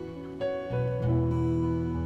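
Soft instrumental background music with plucked acoustic guitar notes.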